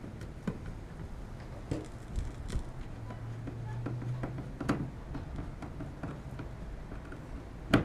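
Scattered light clicks and taps of hand work fastening screws into a plastic transducer mount on a polyethylene kayak hull, with one sharp, louder click near the end. A brief low hum sits under it in the middle.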